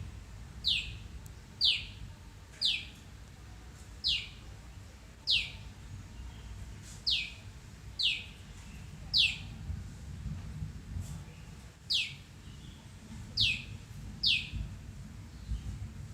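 A small bird, which a Google search took for a hill prinia (Prinia superciliaris), calling over and over. It gives about eleven single sharp notes, each a quick downward sweep, roughly a second apart, with a pause of nearly three seconds about two-thirds of the way through.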